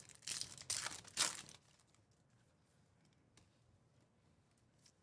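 Foil wrapper of a Topps Star Wars Galaxy Chrome trading-card pack torn open and crinkled by hand, in three or four quick rips within the first second and a half.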